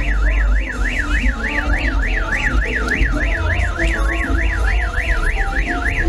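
An electronic alarm tone warbling rapidly up and down, about three sweeps a second, like a car alarm, over music with a heavy bass line. The warble stops abruptly near the end.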